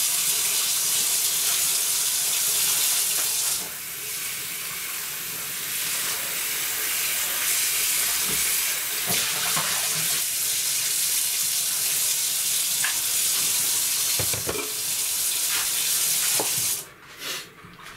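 Kitchen tap running cold water into a cast-iron roaster as it is rinsed. The stream gets quieter about four seconds in, a few knocks of the pot come through, and the tap is shut off near the end.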